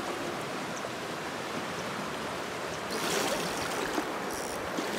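Shallow gravel stream running steadily, with louder water splashing from about three seconds in as a hooked fish is brought close.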